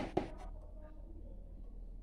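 A few sharp knocks in the first half second as a hand shakes a water bottle held by rubber bands in a motorcycle's wire basket, testing that it sits firm. A faint steady low hum runs beneath.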